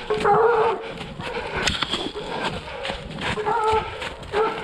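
Hunting hounds baying in short pitched cries, three times, as they are let loose, with clicks and knocks between.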